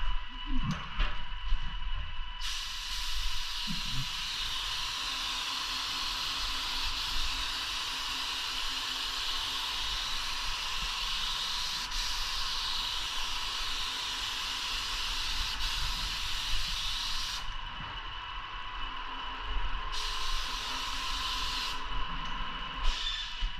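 Paint spray gun spraying woodwork: a loud steady hiss of atomised paint in one long pass of about fifteen seconds, then two shorter passes near the end, as the trigger is pulled and released. A steady high whine runs underneath throughout.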